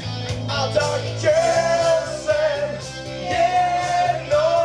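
Live singing into a microphone over loud amplified backing music with a steady beat, the singer holding long wavering notes, played through PA speakers.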